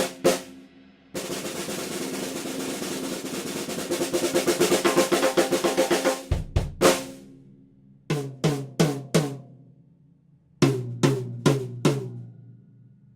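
Gretsch Catalina drum kit: a snare drum roll that grows louder over about five seconds, ending on a low drum hit. Then come two sets of four single strokes on the toms, the second set lower in pitch.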